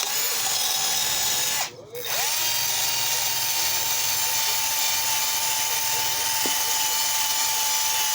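Electric drill spinning an abrasive cleaning wheel against a cast iron tea kettle to strip rust and old finish, with a steady whine. It stops briefly just before two seconds in, then spins back up and runs on.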